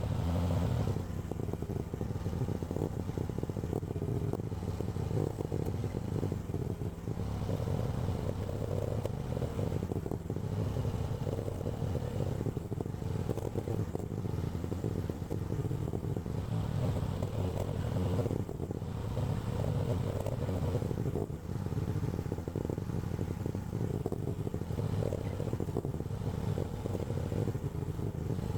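AGT LH12R mini excavator's small engine running steadily throughout.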